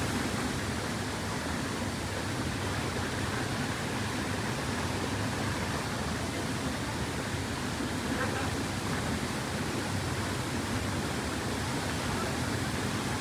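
Water of a small waterfall rushing steadily, an even, unbroken hiss.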